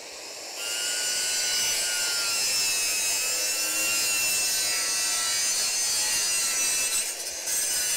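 A small power tool running steadily, grinding or cutting with a hissing sound and a faint high whine. It falters briefly near the end.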